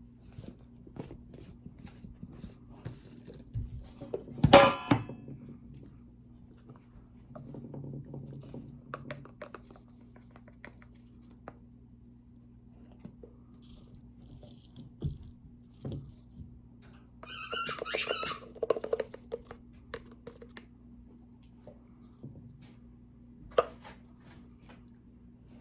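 Kitchen handling sounds as oat flour is measured out: scattered light knocks and rustles, with a loud crackle about four and a half seconds in and another crackly burst later, over a steady low hum.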